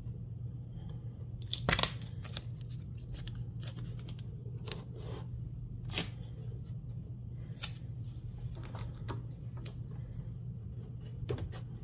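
Masking tape being torn and pressed down by hand to hold a zipper in an embroidery hoop: scattered short crackly tears and rustles, the loudest about two seconds in. A steady low hum runs underneath.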